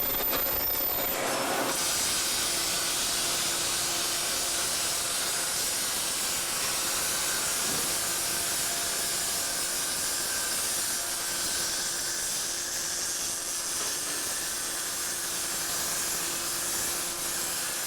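Welding on an exhaust pipe: a steady hiss from the welding arc that settles in about two seconds in.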